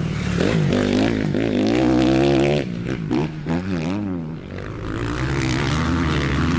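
Dirt bike engine sound effect revving up and down, its pitch rising and falling repeatedly, dipping and wavering faster for a couple of seconds in the middle.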